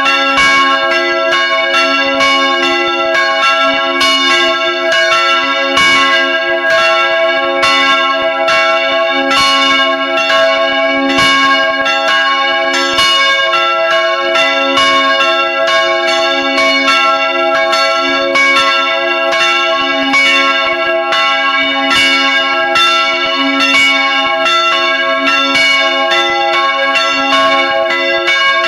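Several church bells ringing together in a full peal, heard close up in the belfry as they swing. Clapper strikes fall unevenly, a few a second, over a steady mass of overlapping ringing tones.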